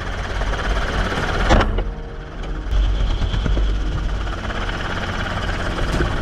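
Helicopter in flight, a steady low rotor and engine drone with wind noise. A single loud shot from the gun about one and a half seconds in.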